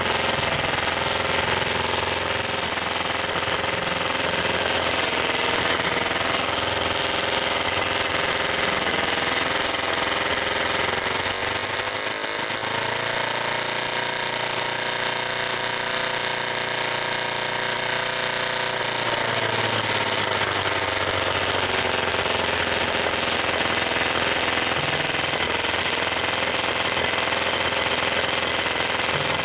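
Microcosm M12 single-cylinder model gasoline engine running steadily with a rapid firing beat. About halfway through its engine speed changes for several seconds as the throttle lever on the carburettor is worked, then settles back to the earlier running speed.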